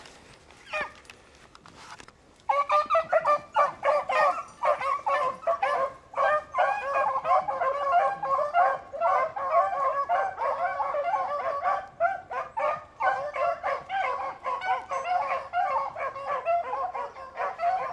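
A pack of beagles baying while running a rabbit, several hounds giving voice at once in an overlapping chorus. Before it only a few faint calls are heard; the full chorus breaks out about two and a half seconds in.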